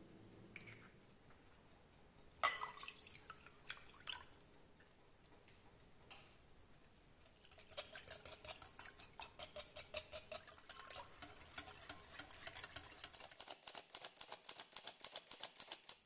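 A few knocks and clatters about two and a half seconds in, then a wire whisk beating egg yolks, milk and oil in a glass bowl: the wires clink against the glass in a fast, even rhythm of several strokes a second.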